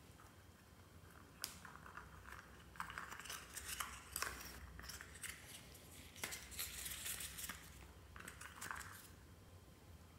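Hands squeezing and pulling at a soft rubber squishy toy: faint, irregular crackles, clicks and crinkly rustling, busiest in the middle.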